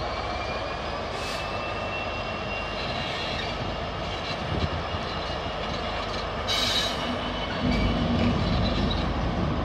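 Freightliner Class 66 diesel locomotive running light, its engine droning steadily while the wheel flanges squeal in thin high tones. About six and a half seconds in there is a brief harsher squeal, and the engine note grows louder near the end.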